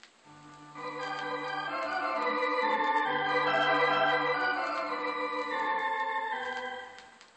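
Conn electronic organ music playing from a vinyl LP: held chords that come in softly, swell, and fade away near the end.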